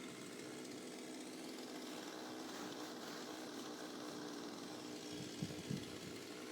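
Chainsaw engine running steadily at an even speed, with two brief knocks about five and a half seconds in.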